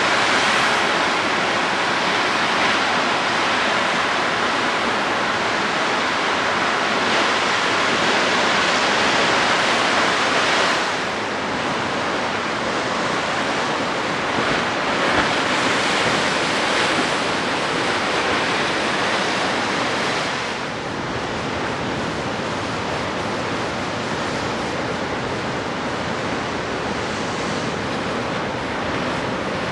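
Pacific Ocean surf washing against the rocky shore in a steady rush, with a little wind on the microphone. It eases slightly about a third of the way in and again about two-thirds of the way through.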